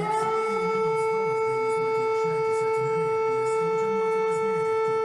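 Lithuanian civil-defence warning siren sounding one loud, steady tone. It reaches its top pitch right at the start after a rising glide and holds there, part of a rising-and-falling wail.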